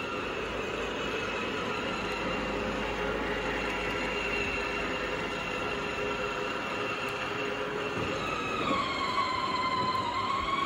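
Electric drive motors and gearboxes of a Pilsan battery-powered ride-on toy jeep whining steadily as it drives over a concrete floor. The whine drops in pitch about eight seconds in and climbs back up near the end.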